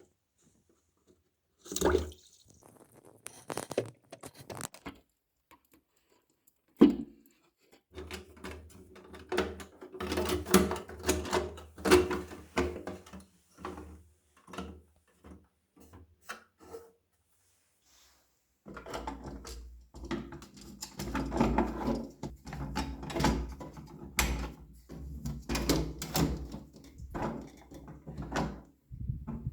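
Plastic parts of an in-wall toilet cistern being handled and fitted by hand: scattered clicks, knocks and rubbing, with one sharp loud click about 7 seconds in.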